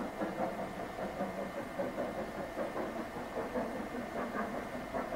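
Double-headed steam locomotives, a War Department 2-10-0 and an LMS Black 5 4-6-0, working hard up a 1 in 49 gradient out of sight: distant, rapid chuffing exhaust beats, about three a second.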